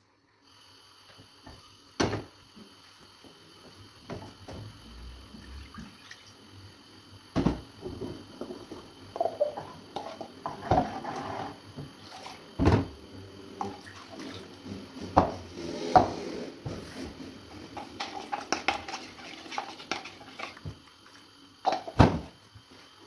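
Kitchen work: dishes and utensils clattering and knocking irregularly, with several sharp knocks, amid some sink-water sounds.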